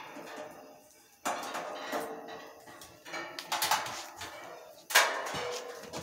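Clattering knocks and rattles of a metal box fan and its window fitting being handled and set in place. Four or five separate sharp knocks, the loudest about five seconds in, with rattling between them.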